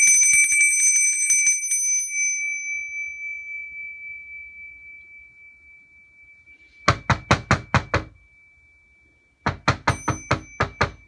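A bell struck once, ringing out with a clear high tone that fades slowly over about six seconds, then knocking on a door: two quick runs of about six raps each, a couple of seconds apart.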